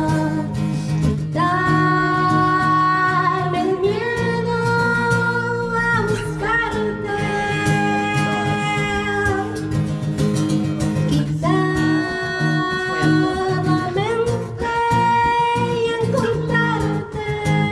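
A woman singing long held notes into a microphone over a strummed acoustic guitar, a live acoustic song played through a small PA.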